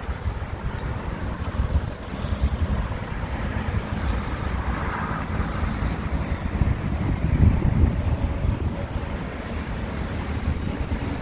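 Wind buffeting the phone's microphone with a low, fluttering rumble over distant road traffic, while short high-pitched chirps repeat in small groups.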